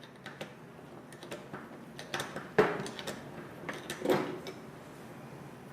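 Metal clicks and knocks from an Allen key working a folding bicycle pedal's threaded shaft out through the crank: scattered light ticks with a few louder knocks, the loudest about two and a half seconds in.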